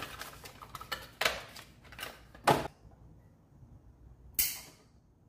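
Cardboard box and plastic packaging being handled and opened by hand: a run of small crackling clicks and rustles with a couple of sharper knocks, the loudest about two and a half seconds in, then a short hissing rustle about four seconds in.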